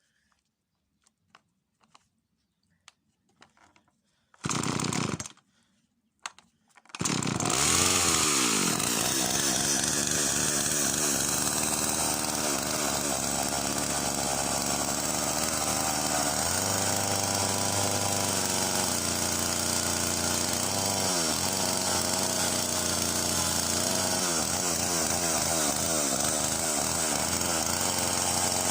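Husqvarna two-stroke chainsaw being started: it fires briefly about four seconds in, then catches about seven seconds in and runs continuously, its engine speed rising and falling at times.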